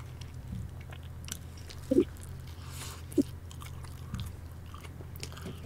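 Faint chewing and small eating noises over headset microphones, with a steady low hum throughout and two short, slightly louder mouth sounds about two and three seconds in.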